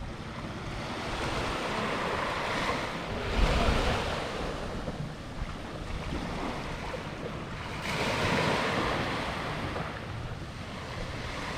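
Ocean surf breaking and washing up the shore, swelling twice and fading between, with wind buffeting the microphone.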